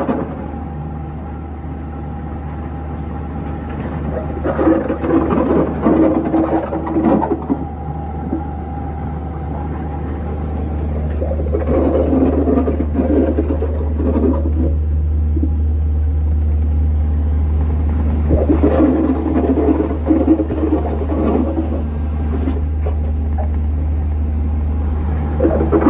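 Heavy construction machine running with a steady low rumble. Several times, for a couple of seconds each, a louder pitched straining and creaking sound comes in over it and then fades.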